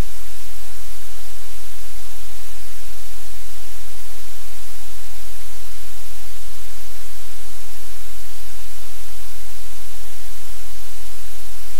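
Loud, steady static hiss with a low rumble underneath, unchanging throughout.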